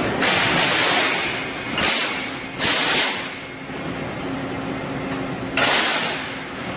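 Pneumatic vacuum-cup gripper on a Yaskawa sheet-loading robot releasing about four hisses of compressed air, the first about a second long and the rest shorter, over a steady machine hum.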